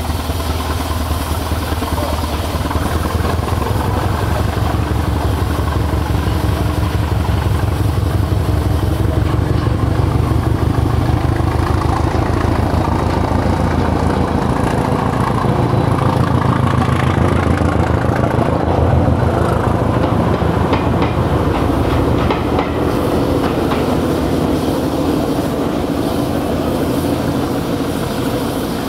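Class 205 'Thumper' diesel-electric multiple unit's English Electric four-cylinder diesel engine running with a deep, pulsing beat. Its note rises and falls around the middle as the unit works.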